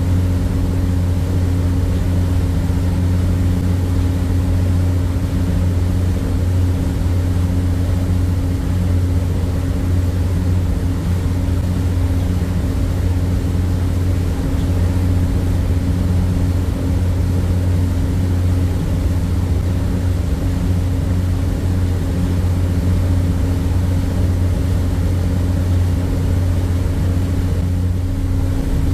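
A harbour ferry's diesel engine running steadily under way: an even low drone with a steady hum above it.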